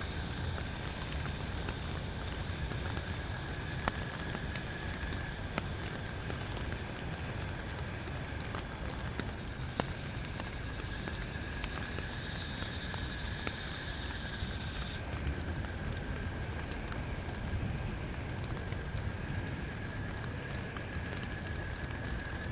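Steady rain, with heavier drops tapping now and then.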